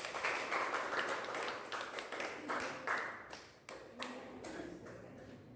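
A small audience clapping: dense applause for the first three seconds or so, then thinning out to scattered claps.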